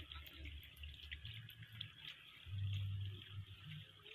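Faint, scattered drips and tiny splashes on shallow muddy water, with a low rumble swelling for about a second midway.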